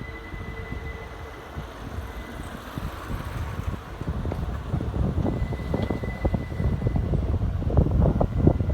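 A Keikyu electric train approaching on the line, its low rumble and wheel-on-rail clatter growing steadily louder through the second half. A faint steady high tone runs underneath.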